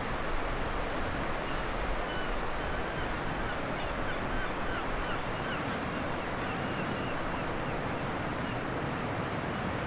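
Steady rush of sea waves and wind, with no distinct events.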